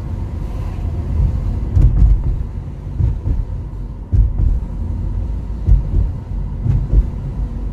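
Mercedes-Benz car driving slowly, heard from inside the cabin: a steady low engine and road rumble with a few louder low bumps.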